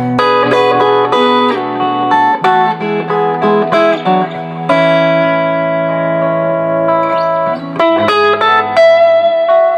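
Two electric guitars: a Road Worn Telecaster fitted with a Seymour Duncan Little '59 Tele pickup plays picked notes and chords over a looped Les Paul backing part, the set-up meant to show both guitars in tune together up the neck. A chord rings out from about five to seven and a half seconds in, with quick runs of notes before and after.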